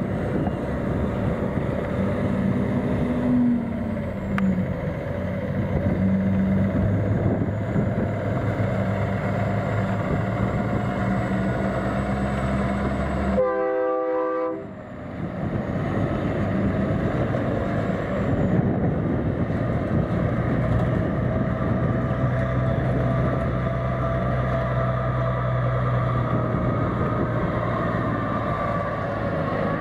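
Diesel engines of Peterbilt semi trucks hauling livestock trailers, running steadily as they pass on a gravel road, with wind noise on the microphone. A short horn blast sounds about halfway through.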